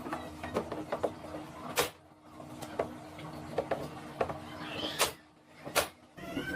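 Irregular clicks and knocks, with three sharper strikes spread through, over a faint steady hum.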